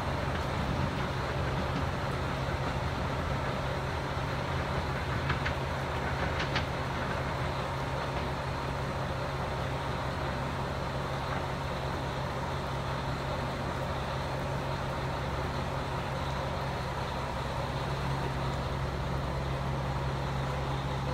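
Steady low mechanical hum over an even background noise, holding level throughout, with two faint short high squeaks about five and six and a half seconds in.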